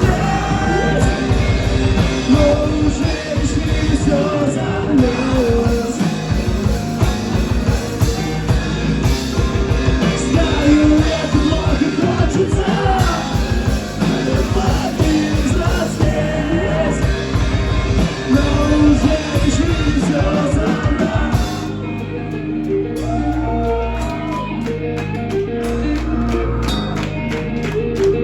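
A rock band playing live with a sung vocal, guitars, bass and a drum kit. About three-quarters of the way through the music thins out to a sparser, quieter part carried by the bass, and the drums come back in near the end.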